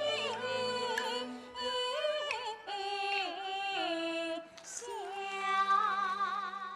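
Yue opera singing by female voices over music, ending on a long held note with wide vibrato that starts about five seconds in and fades out at the close.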